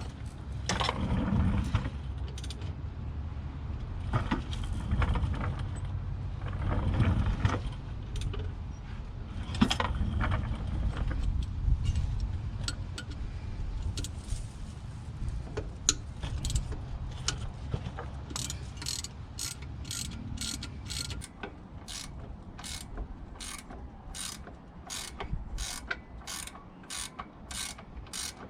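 Hand ratchet wrench working on bolts: irregular clanks and knocks of tools on metal, then from about two-thirds of the way in a steady run of ratchet clicks, about two a second.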